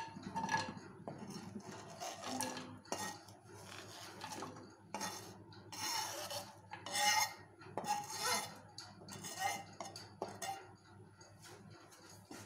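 Metal knife blade scraping across a plastic cutting board in a series of short strokes, sweeping chopped white chocolate compound pieces off the board into an aluminium pan.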